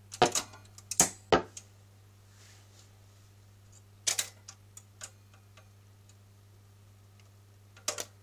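Graetz Grazioso's 7-inch single record changer cycling: sharp mechanical clicks and clacks come in a cluster at the start, another group about four seconds in, and a last pair near the end, as the changer mechanism moves and the tonearm swings out over the record. A steady low hum runs underneath.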